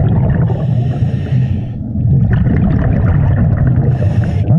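Scuba diver's breathing heard underwater: a loud, choppy bubbling rumble of exhaled air from the regulator, with a hiss of air twice, about half a second in and near the end.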